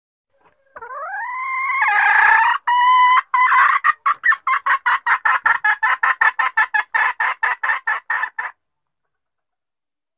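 Junglefowl hen calling: a drawn-out rising squawk about a second in, held briefly, then a long run of quick clucks, about five a second, that stops abruptly near the end.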